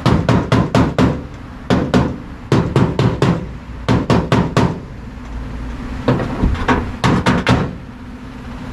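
Hammer striking sheet metal in quick bursts of several blows, about four to five a second, with short pauses between bursts, over a low steady hum.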